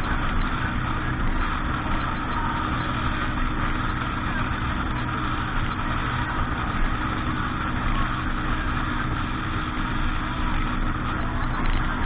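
An engine running steadily under a continuous rushing noise, with no change in pace.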